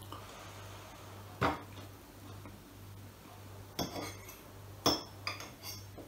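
Metal fork clinking against a plate several times, sharp clinks each with a short ring, the loudest about a second and a half in and near five seconds in. A low steady hum runs underneath.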